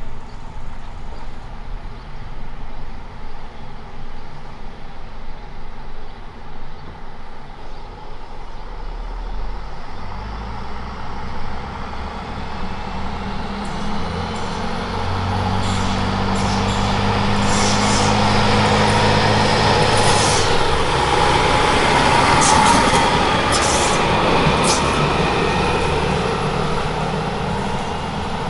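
Stadler Regio-Shuttle diesel railcar approaching and passing close by, its diesel engine growing louder from about a third of the way in, peaking as it goes past, then fading as it pulls away. A few sharp clicks come from the wheels on the rails as it passes.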